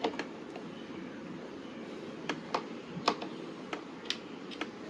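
Scattered light clicks and taps from plastic scooter body panel parts and small screws being handled during disassembly, about ten at irregular intervals over a steady faint hiss.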